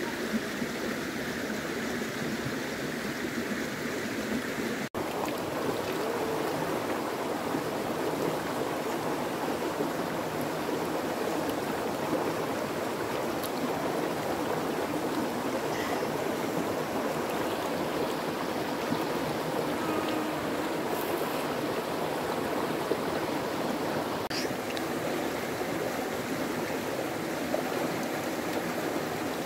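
Steady rushing of running water, like a stream, with a momentary break about five seconds in.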